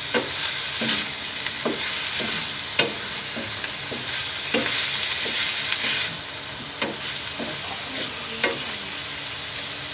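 Pork steak, onion, garlic and button mushrooms sizzling in butter in a pan while a utensil stirs them, knocking against the pan about once a second. The sizzle eases a little after about six seconds.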